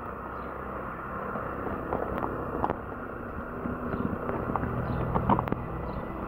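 Steady outdoor background noise with a vehicle engine running nearby, its low hum strongest about two thirds of the way in, and a few light clicks.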